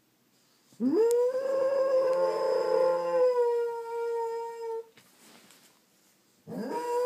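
Dog howling, set off by a fire alarm. One long howl rises at the start, holds for about four seconds and breaks off; a second howl begins near the end.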